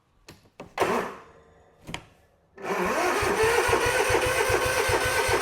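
Zero-turn lawn mower engine started after an oil change: a few clicks and a short burst of noise, then about two and a half seconds in the engine catches and runs steadily.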